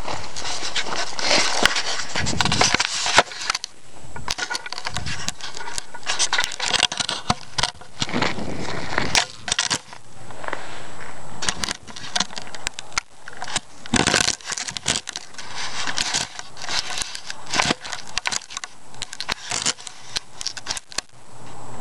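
Close handling noise on rocky ground: irregular scraping, clicking and crunching of stones and dirt right at the microphone as the camera is propped up with a rock.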